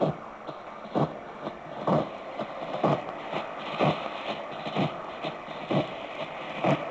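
Shortwave radio tuned to 6300 kHz, its speaker giving steady static and hiss with a regular pulse about once a second: the sound of a jamming transmission on the frequency, which the receiver's display labels "JAMMER".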